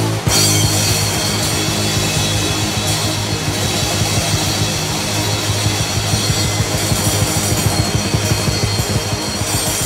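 Speed/thrash metal band recording: distorted electric guitars, bass and drum kit playing a fast, driving riff, the full band coming in together just after the start and pounding on steadily.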